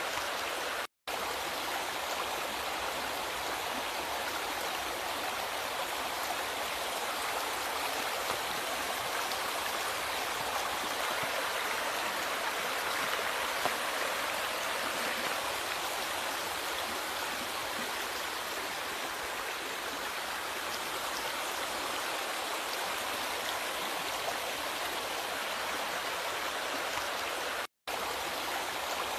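River water flowing, a steady rushing and gurgling that cuts out to silence for an instant twice, about a second in and near the end.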